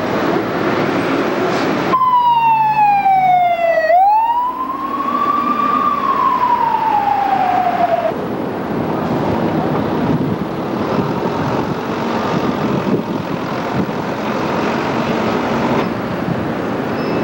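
An emergency vehicle siren wailing: one slow sweep that falls, rises and falls again over about six seconds, starting suddenly a couple of seconds in, over a steady din of street noise.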